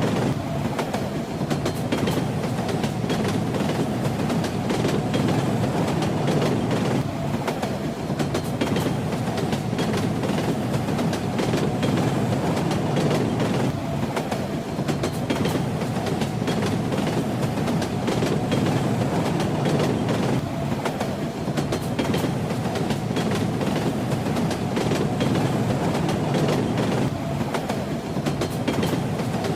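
Train ride heard from inside a railway carriage: a steady rumble with the clickety-clack of the wheels over the rail joints.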